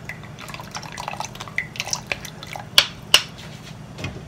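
Metal spoon scraping and tapping in a plastic strainer as red chile sauce is pressed through it, with sauce dripping into the pot below. Scattered short clicks and taps throughout, two sharper taps close together about three seconds in.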